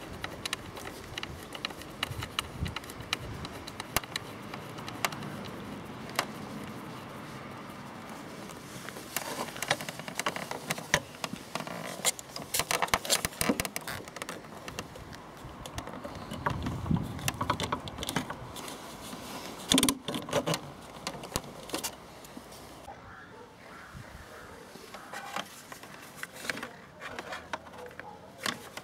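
Motorcycle instrument cluster being handled and fitted onto its bracket: irregular plastic and metal clicks, taps and light rattles, busiest in the middle.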